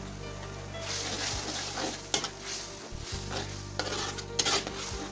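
A spatula stirring chicken in chilli sauce and scraping against a large metal wok, in a string of scrapes that grow loudest near the end, over the sizzle of the sauce cooking.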